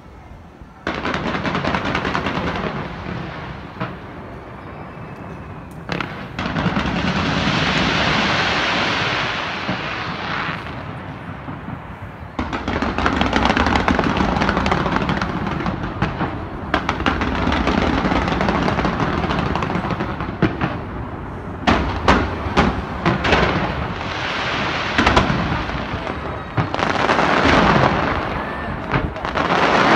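A fireworks display fired from the sides of a skyscraper, going off in a continuous barrage that starts about a second in, with a run of sharp separate bangs in the last third.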